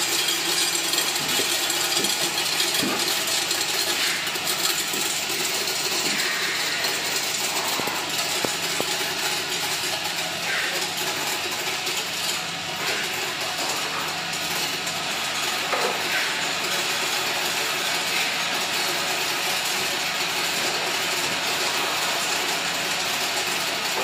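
Diode vision counting and boxing machine running: a steady mechanical rattle with a dense patter of small clicks as the diodes clatter across the counting tray.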